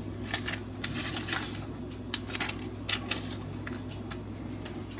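Small plastic sleeves and pieces being handled, giving an irregular scatter of light clicks and crinkles over a steady low hum.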